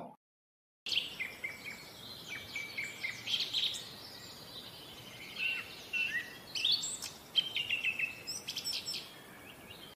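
Small songbirds chirping and twittering, with short high calls and a few quick trills, starting about a second in.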